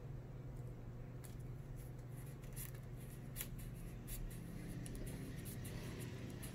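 Faint scratchy rustling and small clicks of hands peeling the protective backing off adhesive tape, over a steady low hum.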